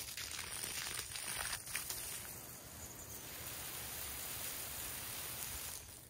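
Water rushing with a steady hiss from the newly installed water system, crackly and uneven for the first two seconds, then even.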